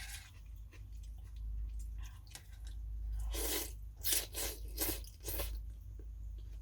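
Close-miked chewing and mouth sounds of a person eating pho, with a run of four or five louder, short, wet mouth sounds between about three and five and a half seconds in.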